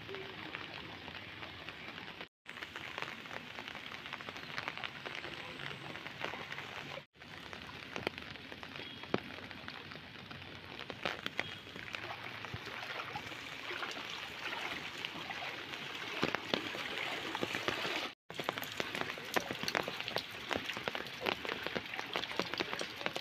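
Steady rain falling on floodwater, a dense, even patter of drops. The sound cuts out for a moment three times.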